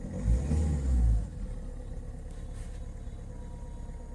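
Mahindra XUV500 engine running, with a louder low rumble for about the first second before it settles to a steady idle. It runs without the noise that a faulty EGR solenoid switch had been making, a new switch having just been fitted.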